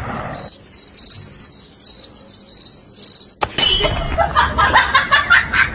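Crickets chirping, a steady pulsing high trill, cut off after about three seconds by a sharp click. A busier stretch of quick ticks follows.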